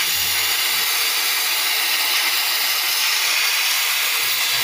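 Gas cutting torch hissing steadily, its flame heating a rivet in a truck chassis rail so the rivet head can be hammered.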